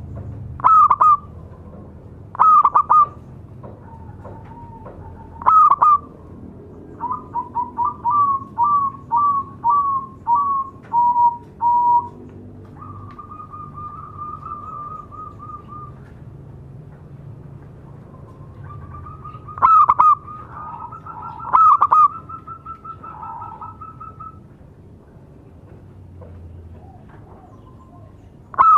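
Zebra dove (perkutut) cooing: a few loud, short rising coos, then a quick run of about ten staccato notes, then a long quivering trill. A second trill with two more loud coos comes about two-thirds of the way through.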